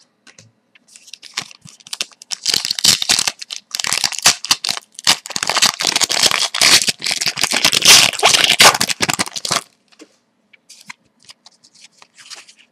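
A hockey card pack wrapper being torn open and crinkled: a dense run of crackling and tearing for several seconds that stops abruptly about two-thirds of the way in, followed by faint rustles of the cards being handled.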